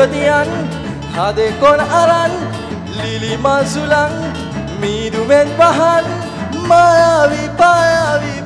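Live music from an ensemble of acoustic guitars, with a cajón keeping the beat and a voice singing the melody.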